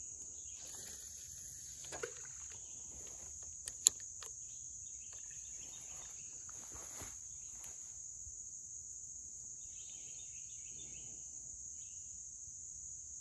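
Steady high-pitched insect chorus of riverside crickets or cicadas, with one sharp click just under four seconds in.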